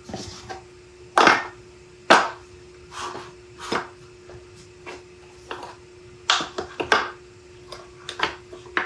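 A string of irregular knocks and clinks as a metal lathe chuck and its small metal parts are handled and set into a plywood box on a workbench, with a steady hum underneath.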